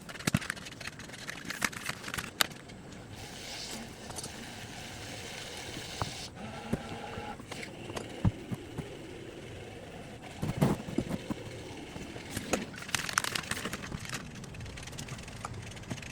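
Hand tools working on a mower's metal parts: scattered clicks, clinks and knocks at irregular intervals, with a couple of short rustling stretches.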